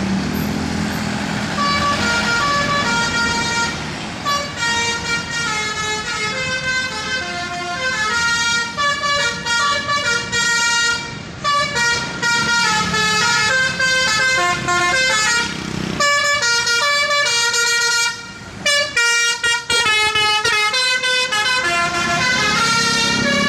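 Indonesian 'telolet' multi-tone bus air horn playing a quick tune of short notes that jump from pitch to pitch, with brief breaks about eleven and eighteen seconds in. A low engine rumble runs underneath, strongest at the start and near the end.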